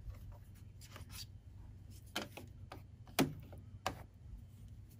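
A few faint, sharp clicks and light taps, about five in all and the loudest a little after three seconds in, from a pipe cleaner being worked around a sewing machine's metal bobbin case and needle plate.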